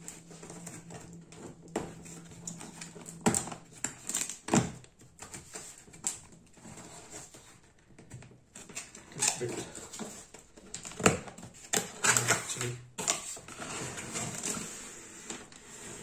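Cardboard packaging box being opened by hand: irregular scrapes, rubs and taps of cardboard flaps and lid, with denser stretches of scraping in the second half.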